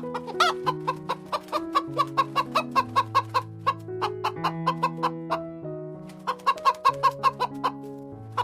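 Chicken clucking in rapid runs of short calls, about five a second, one long run and then a shorter one after a brief pause, over background music with slow stepping bass notes.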